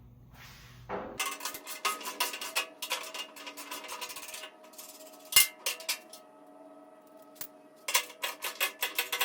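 Large socket ratchet clicking rapidly as it turns out a wheelbarrow bolt, in two runs of clicks, with a single sharp metal knock about five seconds in.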